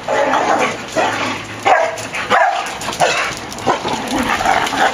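Dogs playing rough together, a string of short barks and yips about once or twice a second.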